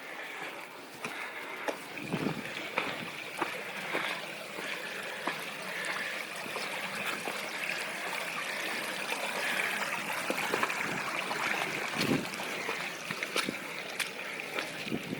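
Stream running steadily, with scattered light clicks and a few soft thumps.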